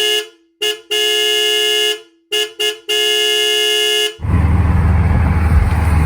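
Car horn honking in a string of toots: short ones mixed with two long blasts, separated by silence. About four seconds in, bass-heavy music starts and runs on steadily.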